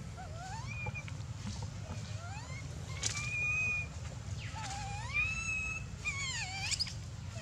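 Baby long-tailed macaque crying: a string of high, thin calls that slide up and down in pitch. A long held cry comes about three seconds in, and quick wavering cries come near the end.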